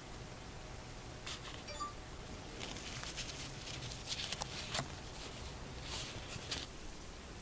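Close rustling and crinkling of a paper tissue being handled and rubbed over a small plastic figure, with scattered light clicks and taps.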